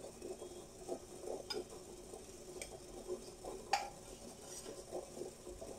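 A metal ladle stirring milk with dudh puli rice-flour dumplings in a stainless-steel pot, making scattered light taps and clinks against the pot. There is a sharper knock about three and a half seconds in, over a faint steady hum.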